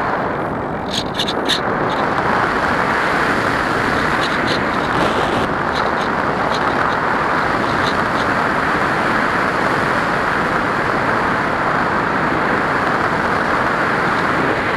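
Steady rush of wind over the onboard camera of a radio-controlled motor glider in flight, with a few light clicks about a second in.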